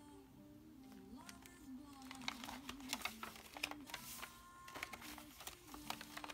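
Paper pages of a handmade junk journal being turned and handled, crisp rustles and taps coming thick from about two seconds in. A soft tune with a wavering pitch runs underneath.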